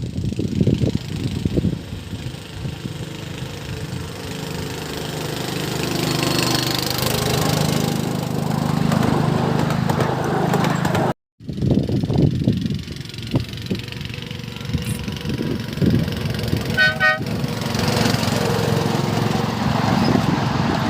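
A miniature railway locomotive's engine running steadily, then a brief cut to silence just past halfway, then uneven running and clattering with one short horn toot about two-thirds of the way through.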